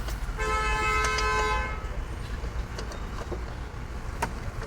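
A vehicle horn sounds once, a steady tone lasting about a second and a half, over a steady low rumble. A sharp knock comes near the end.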